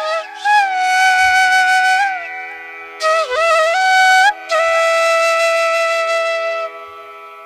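Background music: a flute melody of long held notes that slide between pitches, over a steady drone.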